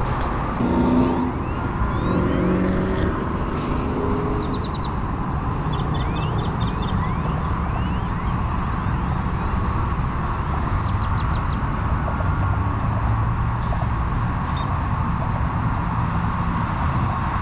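Steady road-traffic noise, a constant low rumble, with a few short high chirps in the first half.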